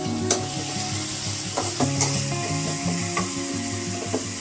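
Chili spice paste sizzling in an aluminium wok while a metal spatula stirs it, with several sharp clicks of the spatula against the pan. Background music with held notes plays underneath.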